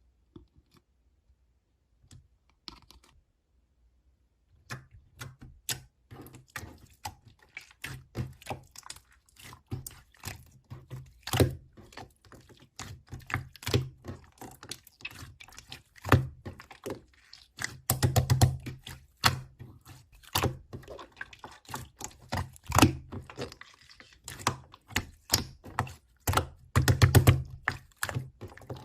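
Rapid, irregular clicks and soft thunks of small objects being tapped and handled, starting about four seconds in, with two denser flurries later on.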